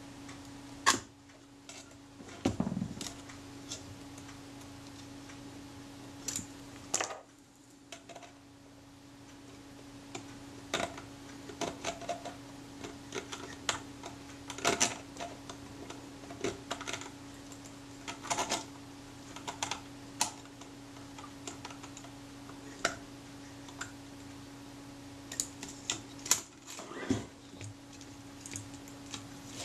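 Scattered light clicks and taps of small metal parts of a Rolleiflex Automat TLR's lens and shutter assembly being handled and fitted, as a screw is worked into place, over a steady low hum.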